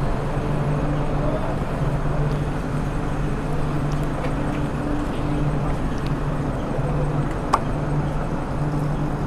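Steady low mechanical hum, coming and going in stretches of a second or two, over a haze of background noise, with one sharp click about seven and a half seconds in.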